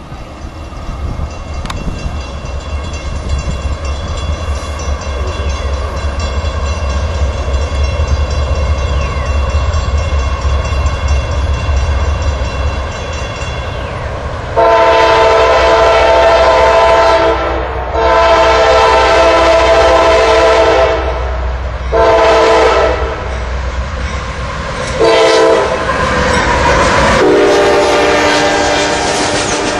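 A freight train of tank cars rolls past with a steady low rumble. Then a diesel locomotive's multi-chime air horn sounds two long blasts, a shorter one and a brief one, and a last blast at a lower pitch as the locomotive rushes past, the usual grade-crossing warning pattern.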